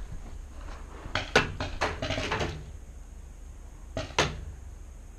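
Paintball gunfire: a quick string of sharp pops and knocks starting just over a second in, then two more around four seconds in.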